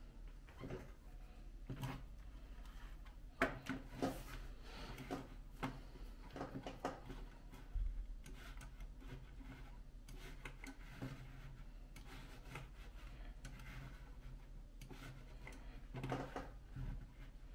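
Faint, irregular clicking and rubbing of a computer mouse being slid and clicked on a desk, with a few louder clusters of clicks, over a low steady hum.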